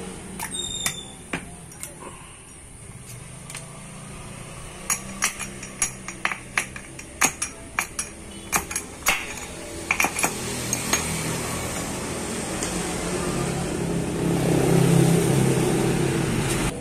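Sharp metallic clicks and clinks of a steel circlip being worked into the bearing bore of a scooter's CVT driven pulley with a pick, coming in quick irregular runs and thickest in the middle. A steady low rumble then builds, loudest near the end.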